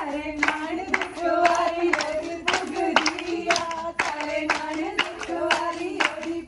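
Group of women singing a Punjabi giddha folk song in unison while clapping along in a steady rhythm, about two claps a second.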